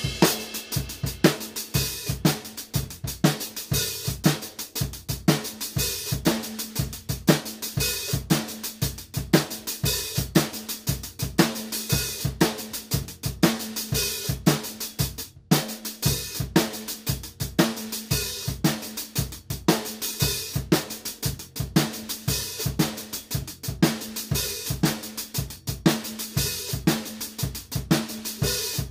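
Drum kit played with sticks in a steady groove: snare, bass drum, hi-hat and a Zildjian cymbal, with a brief break about halfway.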